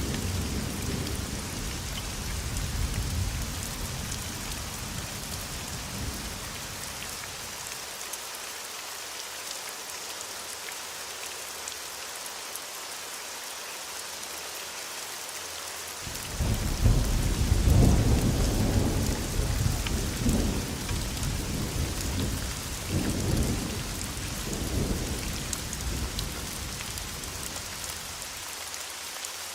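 Thunderstorm: steady rain hiss throughout, with thunder rumbling low and dying away over the first several seconds. About halfway through, a sudden loud thunderclap rolls on in several surges for about ten seconds.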